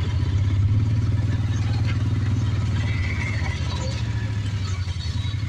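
Vehicle engine running steadily with a low hum, a little louder about half a second in, then easing slightly.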